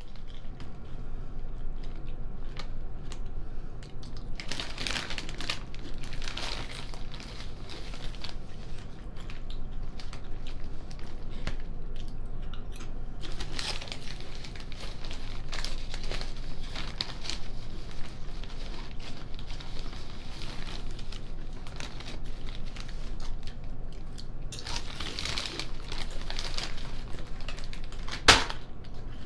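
Paper fast-food wrappers and packaging crinkling as they are handled and opened, in three longer rustling stretches with small crackles between them, and a sharp click near the end.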